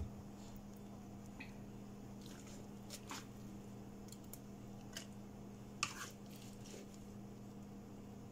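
Soft, wet scraping and several light clicks of a plastic scoop as sticky oatmeal batter is spooned from a bowl into a metal muffin tin, over a low steady hum.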